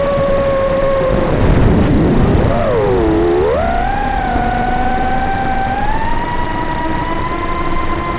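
FPV quadcopter's brushless motors whining, the pitch sliding with the throttle: it sags, dips low about three seconds in, then climbs and holds higher.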